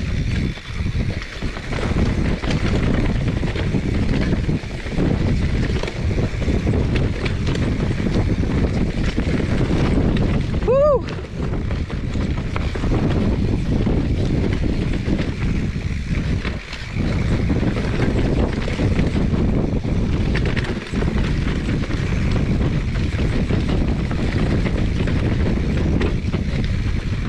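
Wind buffeting the microphone over the tyre and trail rumble of a mountain bike riding fast down dirt singletrack. There is a brief rising-and-falling high note about halfway through.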